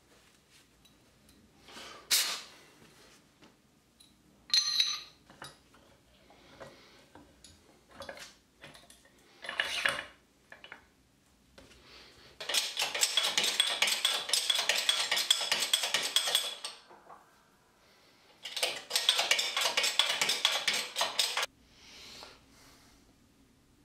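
Steel machine parts handled on a workbench: a few separate sharp metal clinks, then two stretches of several seconds each of rapid, dense metallic clicking and scraping.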